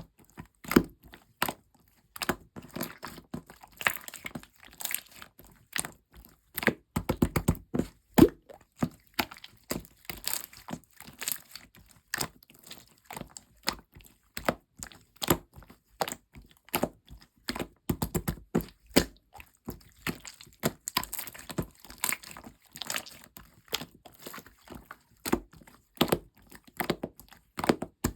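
Blue clear slime being squeezed and pressed by hand, giving a steady stream of irregular sharp clicks and crackles, thickest about seven seconds in.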